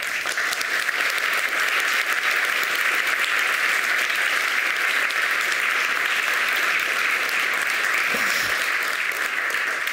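Audience applause: many people clapping together in a dense, steady patter that starts suddenly and holds throughout.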